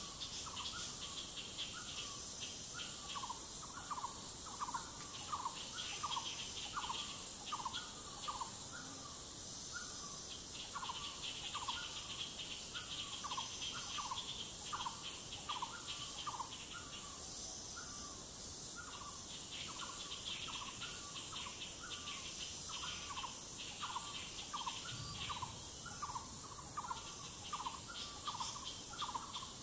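Forest insect and bird chorus: a steady high-pitched insect drone, with pulsing insect trills that come and go, over a bird repeating short notes about twice a second.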